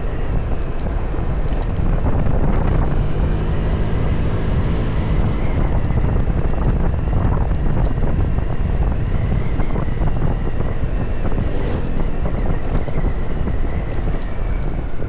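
Heavy wind buffeting the microphone while riding on a motorbike, with the engine running underneath.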